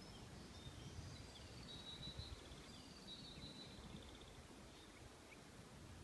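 Faint birdsong: a songbird sings a few high chirps, then two trilled phrases between about one and a half and four and a half seconds in, over a low rumble.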